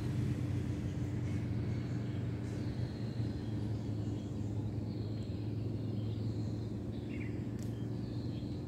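A steady low mechanical hum, as of an engine or motor running nearby, with a few faint bird chirps over it.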